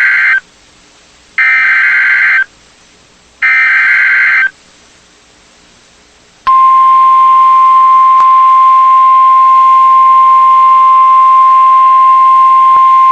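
Three bursts of EAS/SAME digital header data, each about a second long with a second between them, a harsh warbling data screech; after a two-second pause the steady NOAA Weather Radio 1050 Hz attention tone starts suddenly and holds, announcing a new warning.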